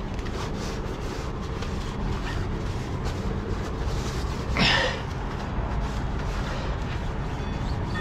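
Heavy diesel truck engine idling steadily, with one short louder rasp a little past halfway.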